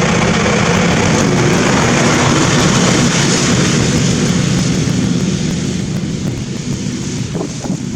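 Husqvarna zero-turn mower's Briggs & Stratton V-twin engine running steadily with its muffler fitted, easing a little quieter over the last few seconds.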